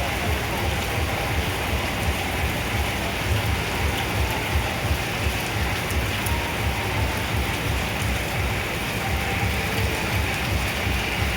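Heavy rain falling steadily, with an uneven low rumble underneath.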